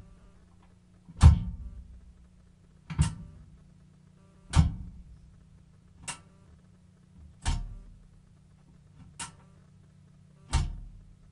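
Sharp knocks repeating about every one and a half seconds, each dying away quickly, over a steady low hum.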